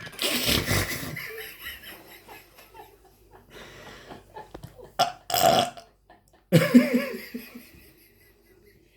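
Loud burps: a long, deep one right at the start, and two more bursts about five and six and a half seconds in, with some laughter.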